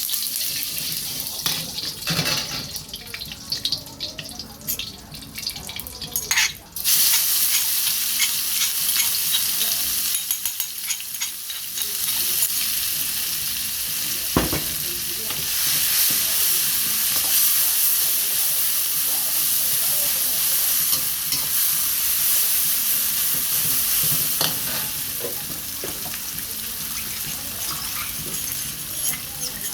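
Food sizzling in a hot pan while being stirred, with scattered scrapes and knocks of a utensil against the pan. The sizzle jumps to a steady, louder hiss about seven seconds in, and there is one sharp knock about halfway through.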